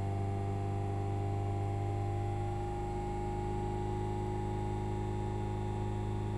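2001 Toyota Corolla AE112 four-cylinder engine held at steady revs, a steady hum with a higher whining tone over it: the strange noise at 3,000 rpm that the owner suspects comes from the gearbox.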